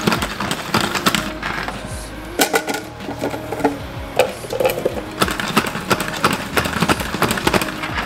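Plastic pump salad spinner pressed and spinning with a low whir, among sharp clicks and knocks of hard plastic as the basket and lid are handled. Soft background music underneath.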